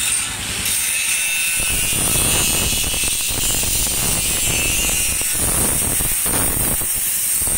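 Angle grinder cutting into steel box-section bars: a loud, rough grinding noise with a high whine on top, starting about half a second in and wavering as the disc bites.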